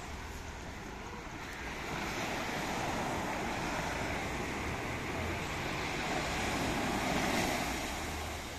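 Sea surf washing onto a sandy beach, swelling about two seconds in and easing off near the end, over a low rumble of wind on the microphone.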